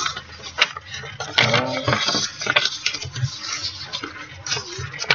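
A sheet of origami paper rustling and crackling with many sharp, irregular crinkles as it is handled, folded and creased by hand.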